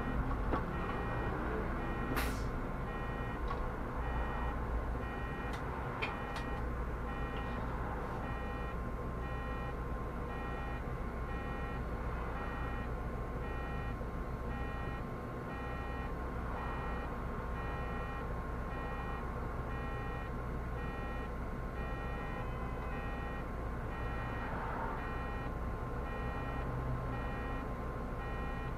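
Inside a Solaris Urbino 18 articulated city bus: a steady low engine rumble, with an electronic beep repeating about one and a half times a second the whole time. A couple of short squeaks or clicks sound in the first few seconds.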